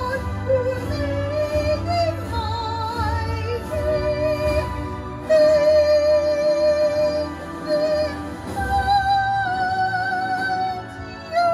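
A woman singing a 1940s-style song into a microphone, amplified through a PA speaker, holding notes with a wide vibrato over instrumental backing.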